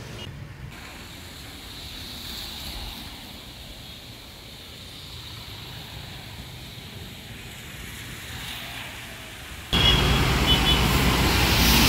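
Traffic on a rain-wet city road: vehicles and tyres passing on wet tarmac as a steady wash of noise. About ten seconds in, it turns suddenly much louder and fuller.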